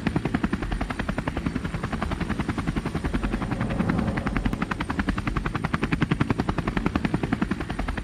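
Propeller-plane engine sound effect: a fast, even chopping beat over a low drone, starting to fade out near the end.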